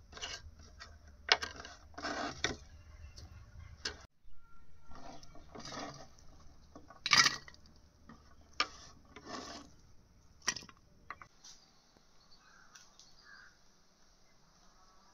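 Cookware clattering: irregular knocks and clinks of metal utensils and pots, the loudest about seven seconds in, over a low steady hum that stops about eleven seconds in.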